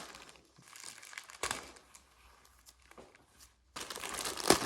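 A mailed package being opened by hand, its packaging crinkling and tearing in uneven rustles, louder and busier for the last second.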